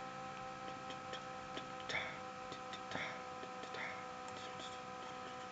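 Faint, irregular clicks of a computer mouse, a few a second, over a steady electrical hum.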